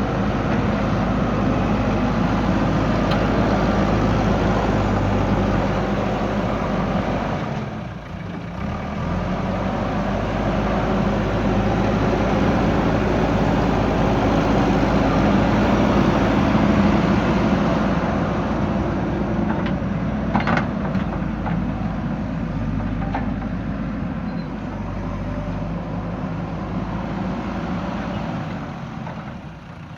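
JCB backhoe loader's diesel engine running under load, steady and loud, dropping briefly about eight seconds in. There are short high-pitched squeaks or clinks about twenty seconds in.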